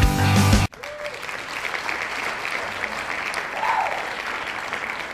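Rock music with a beat cuts off suddenly under a second in, followed by an audience applauding steadily.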